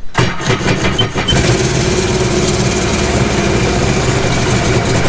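Sea-Doo GTR 230's supercharged three-cylinder Rotax engine cranked by its electric starter, catching after about a second and a half and then idling rough, with two short beeps about a second in. It has a solid, continuous misfire and sounds like it is running on only two cylinders, with an injector fault code logged.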